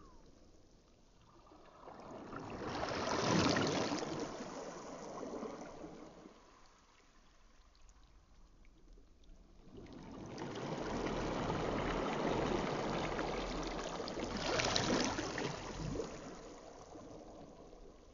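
Small lake waves washing up onto a sand beach and drawing back. Two surges are heard, the first a few seconds in and the second, longer one in the second half.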